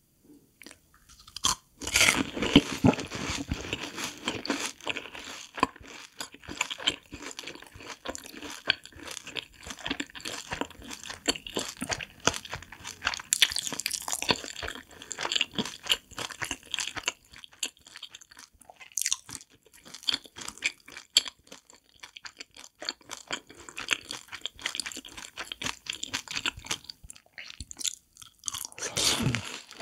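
Close-miked crunching and chewing of a seasoned fried cheese ball dipped in creamy white sauce. A loud crunchy bite comes about two seconds in, then steady crackly chewing, and another bite comes near the end.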